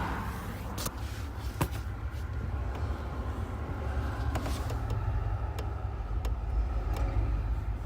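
Volkswagen Polo Sedan's front suspension knocking and clicking over the car's steady low rumble: a few sharp knocks, the loudest about a second and a half in. The owner traces this to a worn front control arm whose bushing seat had loosened, letting the arm rattle against the body.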